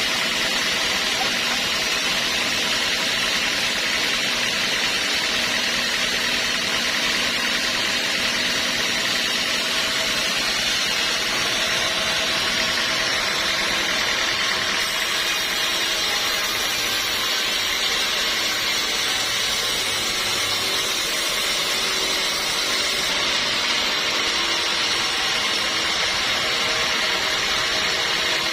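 Sawmill machinery running steadily: a continuous mechanical hiss and hum with a faint steady tone.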